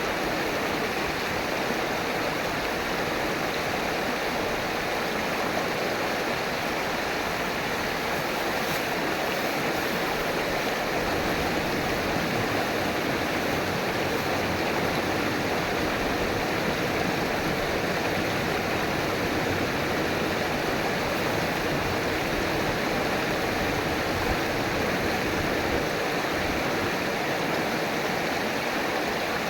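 River water flowing and rushing over rocks, a steady, even rush with no breaks.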